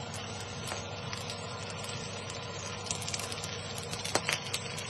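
Glazed pork ribs sizzling and crackling on a hot oven tray as a pastry brush works more glaze on, over a steady low hum. The crackles come thicker after about three seconds.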